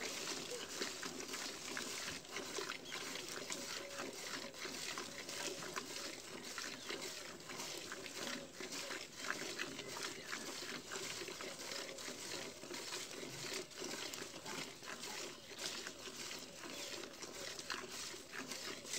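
Cow being milked by hand: milk squirting into a steel bucket in a steady run of short strokes, one after another.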